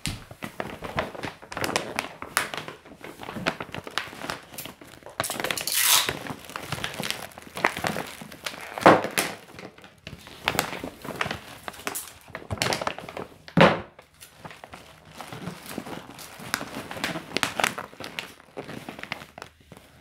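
Gift bag and wrapping paper crinkling and rustling as they are handled, in irregular spells, with a couple of louder knocks about halfway through.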